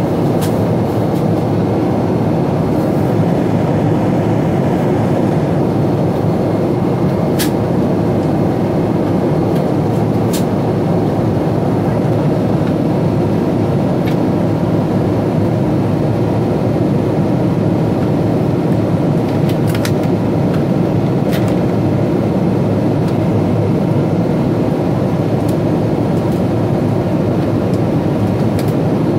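Steady cabin roar of a Boeing 777-200ER in flight, engine and airflow noise heard from a window seat, with a few faint clicks scattered through it.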